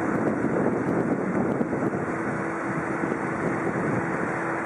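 Airbus A380's jet engines on landing approach: a steady rumble with wind on the microphone, and a faint steady hum that joins about two seconds in.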